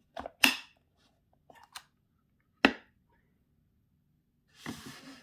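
Small wooden tool box being opened and handled: a few sharp wooden clicks and knocks, the loudest about half a second in and another past halfway, then a brief scraping rustle near the end.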